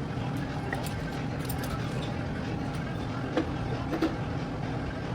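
Steady low hum in the shop with scattered faint ticks and two light metal knocks, about three and a half and four seconds in, from hand-tool work during an engine teardown.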